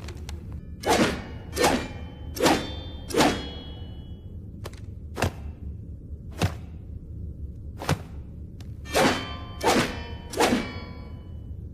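Katana sword sound effects: four quick blade swishes, each with a short metallic ring, then four sharp clicks spaced a second or so apart, then three more swishes near the end. A steady low hum runs underneath.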